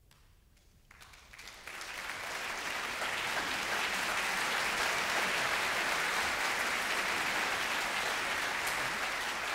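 Concert hall audience applauding. The applause begins about a second in, builds over the next two seconds and then holds steady.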